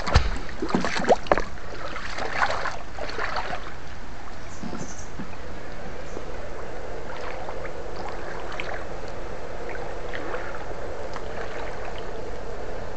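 Water splashing and sloshing as an electrofishing pole is swept through a shallow stream pool, loudest in the first few seconds, over a steady background hiss. A faint steady hum comes in about halfway through.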